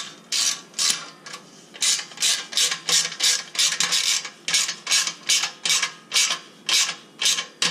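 Hand ratchet wrench clicking in quick, even back-and-forth strokes, about two to three a second, as it tightens the band clamp bolt on a motorcycle exhaust.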